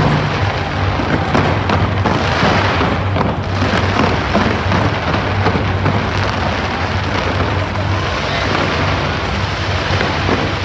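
A dense fireworks barrage: many bursts and crackles overlapping without a break.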